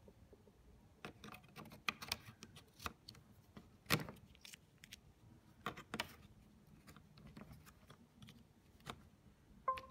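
Scattered sharp clicks and taps of a plastic USB pen drive being handled and knocked against a laptop's casing while it is fitted into a USB port, the loudest about four seconds in. A brief pitched tone sounds right at the end.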